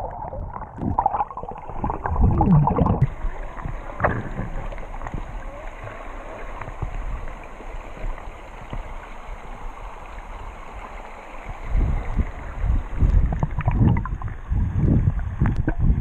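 Muffled underwater rumble heard through a submerged action camera: the pool's water churned by the nearby waterfall, with bubbling and sloshing from a swimmer's strokes. It is heavier in the first few seconds and again from about twelve seconds in.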